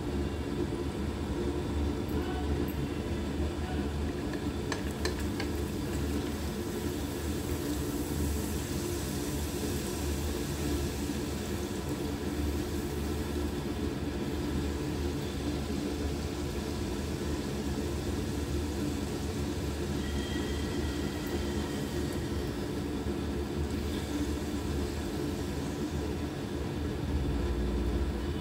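Poori deep-frying in hot oil in a small pan: steady sizzling and bubbling over a low rumble, with a couple of short clicks about five seconds in.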